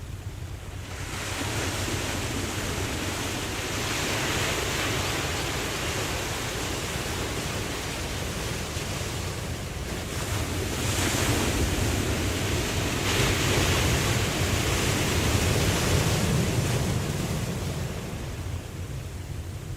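Ocean waves washing in, the rushing sound swelling in slow surges, loudest in the second half and easing near the end.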